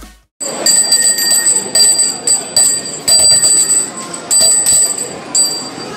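Bright metallic dings, about ten at irregular intervals, each ringing briefly at the same pitch, over the chatter of a busy restaurant crowd. Background music cuts off at the very start.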